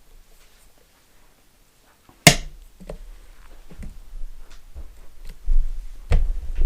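A sharp knock about two seconds in, followed by irregular handling noises and a second knock near the end, as things are moved and set down.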